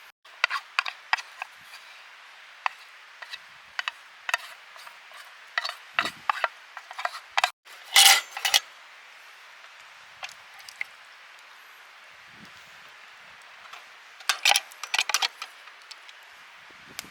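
Metal utensils clinking and scraping against a mess tin: scattered sharp clicks and clatters, with the loudest cluster about eight seconds in and another quick run of knocks near the end.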